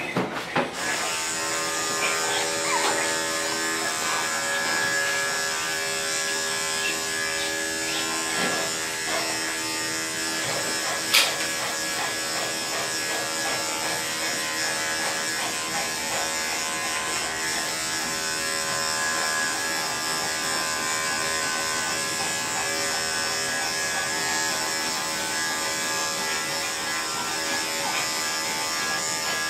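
Electric dog-grooming clippers running steadily with an even buzzing hum as they shave through the dog's coat. A single sharp click is heard about eleven seconds in.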